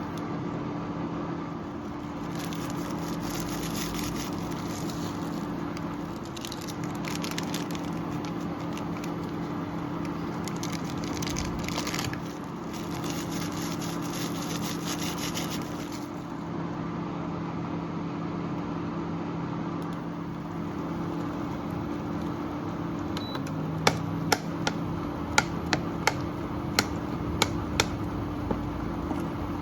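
A steady electric hum under a light hiss. Near the end come a run of sharp taps, about two a second.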